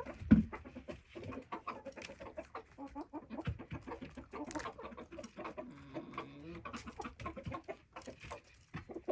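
Hens clucking softly at close range, with many small clicks throughout and one low thump about half a second in.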